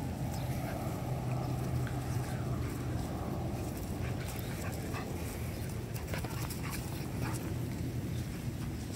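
A Samoyed and a Keeshond puppy play-fighting, with low, continuous growling and occasional whimpers, over a steady background hiss.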